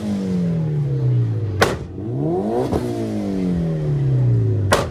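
A car engine being revved hard and let fall, twice: each time the pitch climbs quickly and then sinks slowly back. Loud sharp cracks come about a second and a half in and again near the end.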